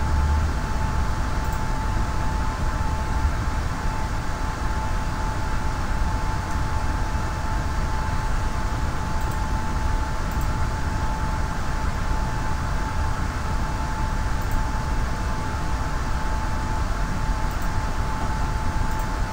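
Steady background noise picked up by an open video-call microphone: an even hiss with a low rumble and a constant high-pitched tone throughout.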